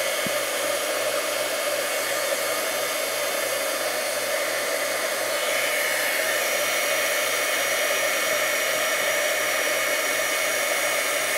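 Handheld embossing heat gun blowing steadily, its hot air melting embossing powder on a stamped card; the tone shifts slightly about halfway through.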